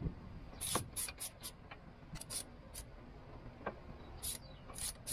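Hand wrench and socket working the bolts of a pickup's front wheel hub: about a dozen short, sharp metallic clicks and clinks at irregular intervals, most bunched in the first three seconds.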